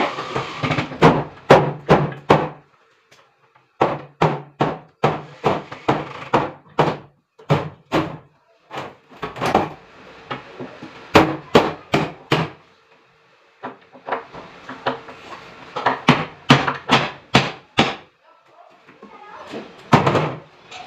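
Repeated sharp knocks on the wooden wardrobe cabinet, in runs of several blows about two or three a second, broken by short pauses.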